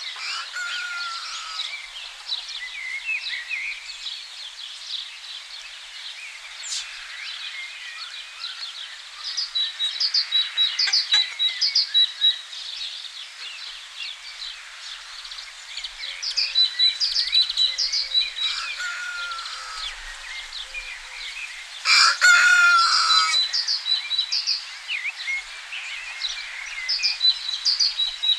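Many small birds chirping and singing, with a high note repeated in quick runs. About three-quarters of the way through, a rooster crows once, the loudest sound here.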